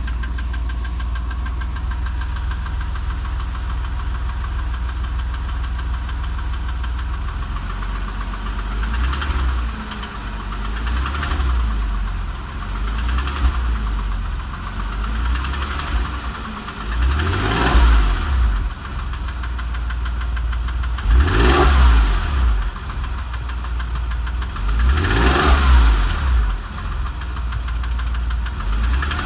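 Porsche 996 3.4-litre flat-six engine with a ticking sound, idling steadily, then revved in a series of short throttle blips, the last three higher, each rising and falling back to idle.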